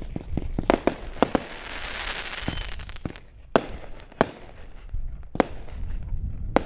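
Fireworks bursting: a string of sharp bangs at uneven intervals, some in quick pairs. A crackling hiss of sparks fills the gap between them about a second and a half in.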